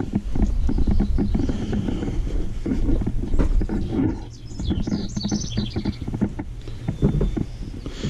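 Footsteps and handling knocks of a walking, hand-held camera, with wind rumble on the microphone; small birds chirp now and then, most clearly around the middle.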